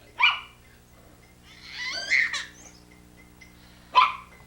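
A dog barks sharply twice, once at the start and again about four seconds in, with a longer call that wavers in pitch between the barks. The dog is demanding his ball.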